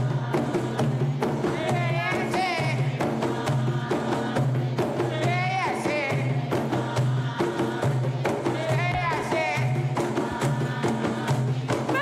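Gulf folk percussion music: hand-beaten frame drums and a double-headed drum keeping a steady, driving rhythm, with a voice singing in bending phrases over it.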